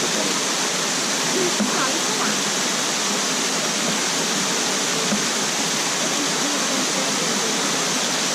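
Steady rush of water falling at the Bigăr waterfall: an even, unbroken roar of pouring water.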